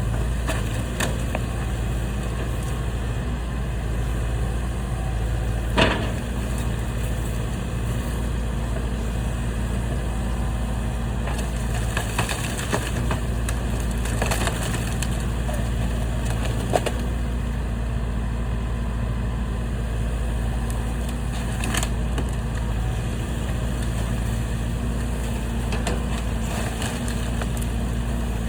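Heavy machine's engine running steadily while clearing debris, with a few sharp cracks of wood breaking and crunching as junk is grabbed.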